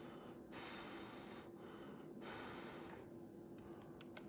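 Soft breaths close to the microphone, two hissy swells about a second apiece, over a faint steady hum.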